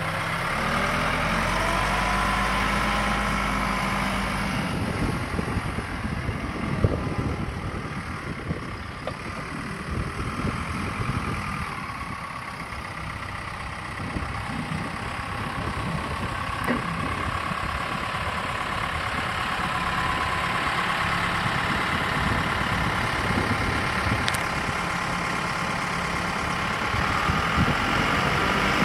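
Case 580 Super L backhoe's diesel engine running as the machine drives, its note rising just after the start, with irregular knocking and rattling through the middle and a steadier note later on.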